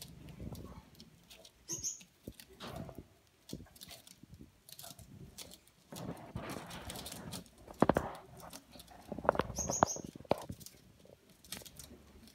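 Gouldian finches pecking and scrabbling over seed on newspaper: a run of soft irregular taps and rustles, with louder flurries about eight and ten seconds in. Two short high chirps, one early and one near ten seconds.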